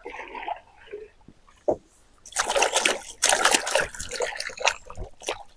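Water splashing and trickling as cassava tubers are washed by hand, picking up about two seconds in as a run of splashes.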